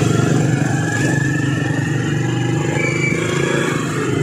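Small motorcycle engine running steadily at low riding speed, with wind and road noise over it.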